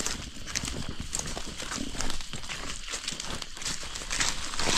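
Dry forest leaf litter crunching and rustling in quick, irregular crackles.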